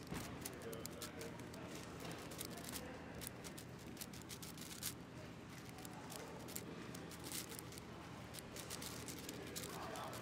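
A MoYu AoShi WRM 6x6 speedcube being turned fast, giving a quick, irregular run of plastic clicks and clacks, over a steady low hum in the background.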